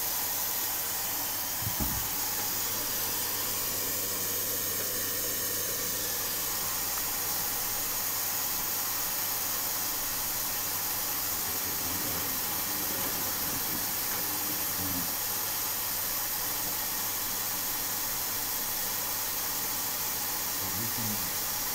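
Tricity Bendix AW1053W washing machine running with a steady hiss, with a single short thud about two seconds in.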